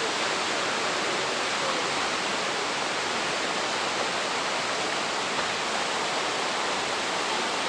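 Rushing water of a mountain creek and waterfall: a steady, even hiss of fast-flowing water.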